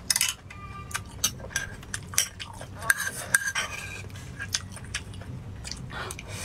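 A metal spoon clinking and scraping against a bowl while scooping up rice: a run of short, sharp taps and clicks.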